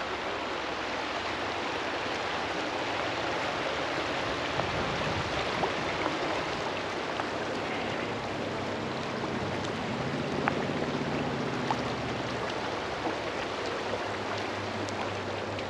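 River water running, a steady rushing wash. A faint low hum comes and goes in the second half.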